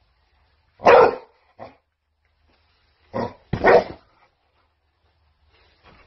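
Pit bull giving short, sharp play barks while it pounces about on a bed. There are four barks in two pairs: a loud one about a second in with a small one just after, and two more near the middle.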